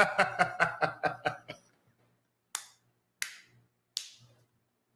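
A man laughing hard in a rapid run of laughs that dies away in the first second and a half, then three sharp slaps or claps about two-thirds of a second apart as he doubles over.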